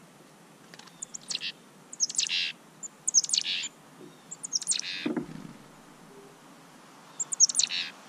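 Small backyard songbirds calling at a winter feeder: five short bursts, each a quick run of high notes sliding downward. A soft low bump about five seconds in.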